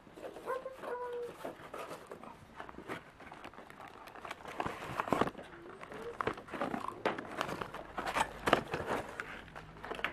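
Plastic toy pieces and packaging being handled: crinkling with irregular clicks and knocks, a few louder about halfway through and near the end.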